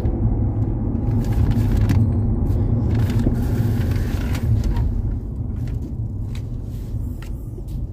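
Steady low rumble of engine and road noise inside the cabin of a Nissan Patrol Y62 driving slowly, growing a little quieter toward the end.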